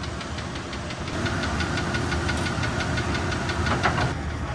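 A shop tool clicking rapidly and evenly, about eight clicks a second, with a steady whine that starts about a second in and stops near the end, over a constant low hum.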